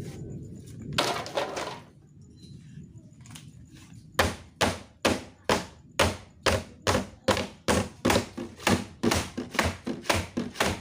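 Blows struck on a scrap refrigerator's cabinet as it is broken apart: a scraping knock, then a steady run of sharp strikes, about two or three a second, each with a short ring.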